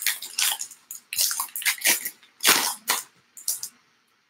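A stack of Allen & Ginter baseball trading cards being flicked through one by one in the hands: thin card stock sliding and snapping against card stock in a run of short, irregular swishes.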